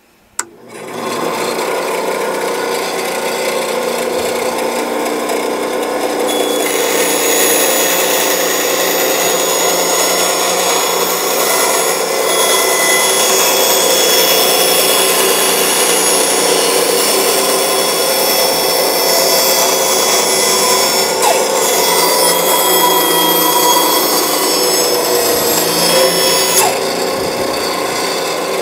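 Band saw starting up in the first second and running steadily. Its blade cuts a curved shape out of 3/8-inch plywood from about six seconds in until near the end, when the blade runs free again.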